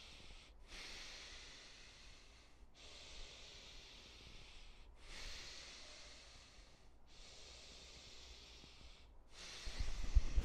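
A man breathing slowly and audibly through his nose in connected breathing, each inhale running straight into the exhale with no hold at the top or bottom. Each breath lasts about two seconds, separated by short breaks. A few low thumps come near the end.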